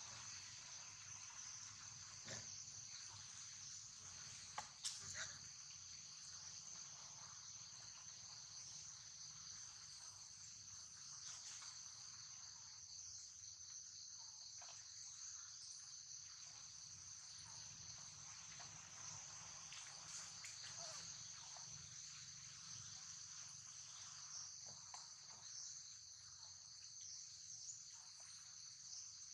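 Faint, steady high-pitched insect chorus, with two brief knocks about five seconds in.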